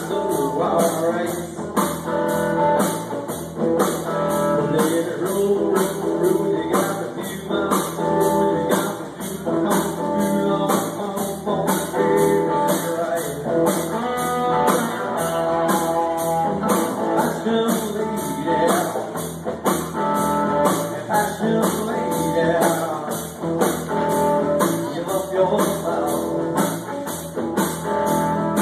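Live rock band playing electric guitars and a drum kit, with a steady, even beat throughout.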